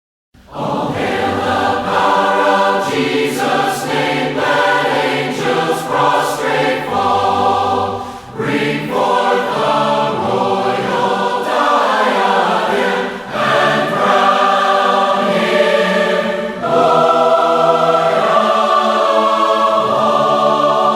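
Choir singing a worship song, several voices together, starting abruptly about half a second in after a moment of dead silence.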